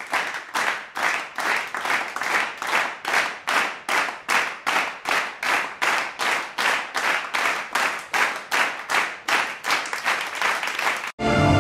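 A crowd clapping in unison to a steady beat, about three claps a second. The clapping cuts off suddenly near the end as music starts.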